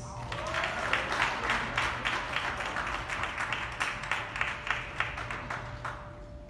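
Audience clapping and applauding, many hands at once, dying away about six seconds in. A faint steady tone runs underneath.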